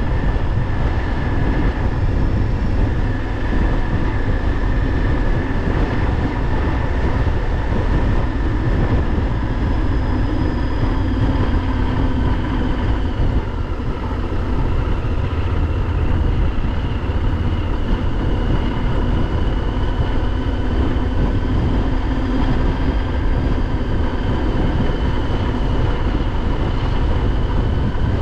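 Honda XL1000V Varadero's V-twin engine running at a steady cruise, its pitch drifting slowly up and down with road speed, under heavy wind rush on the microphone.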